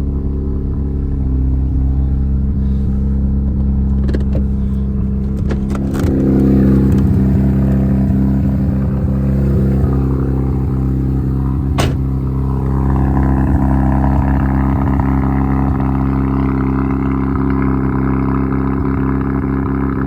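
Mazda RX-7 FD's rotary engine idling steadily, swelling briefly about six seconds in, with a few sharp clicks over it.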